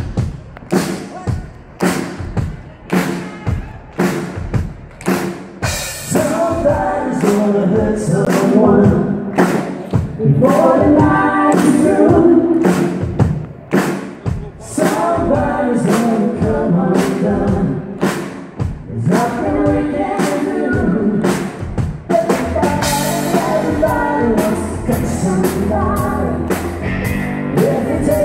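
Live country band playing: a drum kit keeps a steady beat on its own at first, and a male singer comes in about six seconds in and sings over the band.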